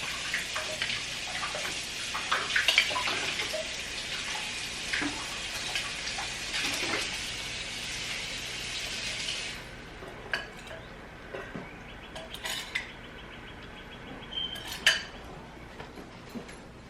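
A hot pan of chicken wings sizzling while a metal spoon scrapes and clinks against it as sauce is spooned over the wings. The sizzle stops suddenly a little past halfway, leaving scattered clinks of the spoon on the pan.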